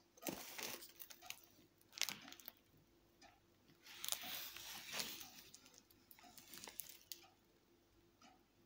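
Plastic wrapper of a pack of chocolate-filled sandwich biscuits crinkling as it is handled, in short, uneven bursts with a few sharp crackles, the longest stretch about four seconds in.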